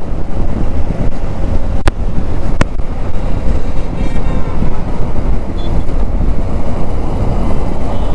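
Heavy wind buffeting on a motorcycle rider's helmet-mounted microphone at road speed, a dense low rumble that flutters in level, recorded through a GoPro Media Mod with a Maono mic, foam sponge and dead cat with the camera's wind reduction off. Two sharp clicks cut through it about two and two and a half seconds in.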